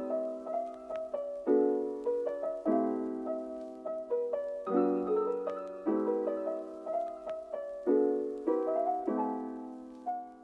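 Outro piano music: a slow piece of chords and single notes, each struck and left to fade.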